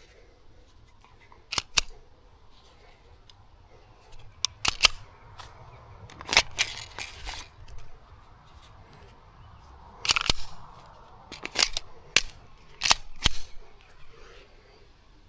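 Sharp metallic clicks and clacks of a Glock 17L pistol being worked to clear a jam, from racking the slide and handling the magazine. They come in short groups of one to three, spread through the stretch, with a denser cluster in the middle.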